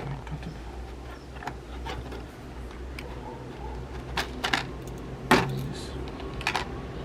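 Sharp clicks and light clatter of hard plastic pieces being handled and cut during a fridge door bin repair, a few scattered knocks with the loudest about five seconds in, over a steady low hum.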